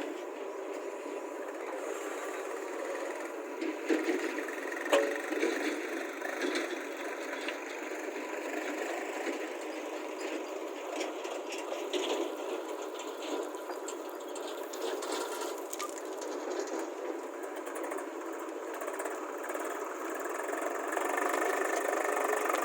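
JCB 3DX backhoe loader's diesel engine running steadily as it works, with a few sharp metallic knocks, the loudest about five seconds in.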